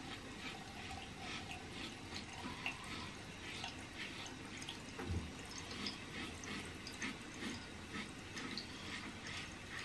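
PAA La Criatura slant double-edge safety razor scraping through stubble on the cheek against the grain, a faint crackle of short strokes a couple of times a second. A soft low thump about five seconds in.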